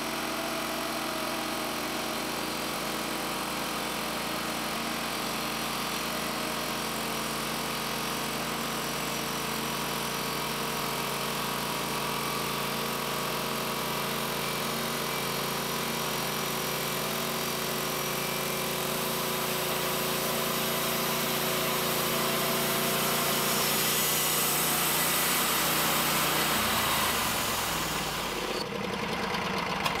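Timberking 1220 portable bandsaw mill running under load, its gas engine driving the band blade through a red oak cant to take a 1/16-inch-thin sheet off the top. The steady engine note grows a little louder over the second half, then its pitch drops near the end as the engine slows.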